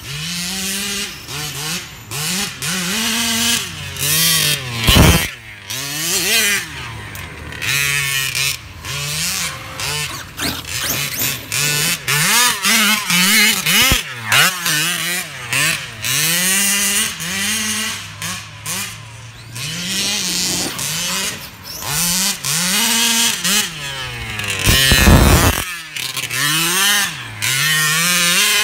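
Two-stroke engine of a gas-powered Kraken RC buggy revving up and down over and over as it is driven, its pitch rising and falling every second or two. Two loud bursts of noise break in, about five seconds in and near the end.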